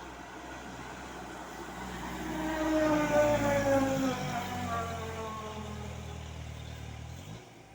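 A bus drives past. Its engine note swells to a peak about three seconds in, then falls steadily in pitch and fades as it goes by. No telolet horn is sounded.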